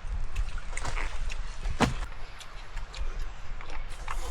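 Stream water sloshing and splashing, with wind rumbling on the microphone and a sharp knock about two seconds in.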